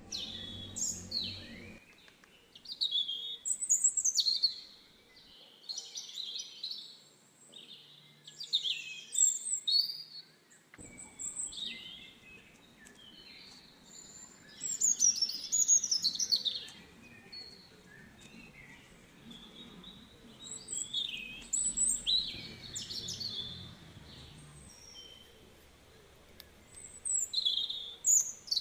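Birds chirping and singing: short bursts of quick, high chirps and trills every second or two, with a faint low background noise underneath for much of the time.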